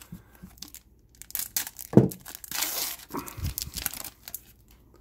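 Foil wrapper of a 2015 Panini Prizm football card pack being torn open and crinkled, with a sharp thump about two seconds in.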